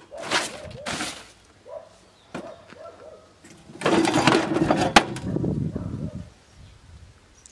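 Handling noises: a wooden board scraped and lifted off a metal-framed box, then a louder scraping, rattling clatter about four seconds in as an old loudspeaker with a cast metal frame is pulled out from among other speakers, with a sharp knock about five seconds in.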